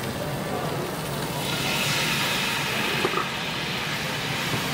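Chicken pieces frying in a hot pan over a gas burner: a steady sizzle that grows louder and hissier about one and a half seconds in, as sauce is in the pan. A single click of the metal tongs about three seconds in.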